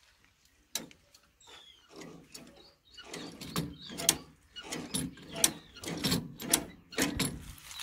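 Metal rods and pivots of a fitted foot accelerator linkage on a Mahindra 575 DI tractor, worked by hand with the engine off. They give repeated clicks and knocks, about two a second in the second half, with a few short squeaks early on.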